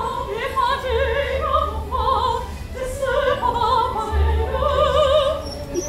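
A high, opera-style singing voice holding long notes with a wide vibrato over live show music with a low bass.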